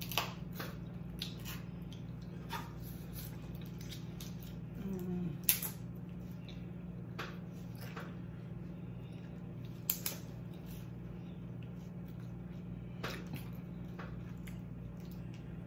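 Boiled shrimp being peeled by hand: scattered small clicks and crackles of shell, with a couple of sharper snaps about five and a half and ten seconds in, over a steady low hum.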